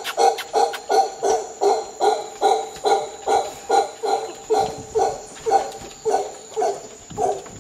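Mantled howler monkey calling in a series of short, rhythmic grunting pulses, about two or three a second, spacing out and fading near the end.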